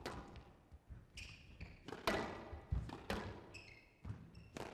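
Squash rally on a glass court: the ball cracks off racquets and smacks against the glass walls and floor, a sharp hit every half second to a second. Short high squeaks from court shoes come between the hits.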